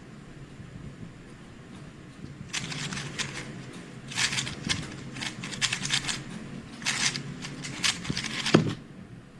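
3x3 speedcube being turned fast in a solve: clusters of rapid plastic clicking for about six seconds, then a single thump near the end.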